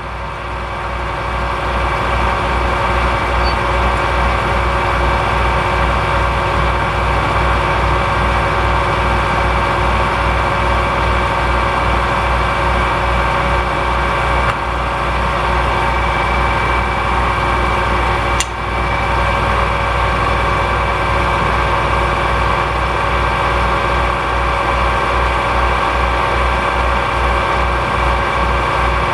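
Metal lathe running steadily, spinning an aluminium motorcycle fork slider while a countersink in a drill chuck is fed slowly into its end to cut a 45-degree seat. Steady machine whine over a pulsing low hum, with a single click about two-thirds of the way through.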